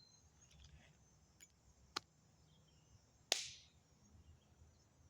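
Two sharp clicks or taps about a second and a half apart, the second louder and trailing off briefly, over a faint quiet background.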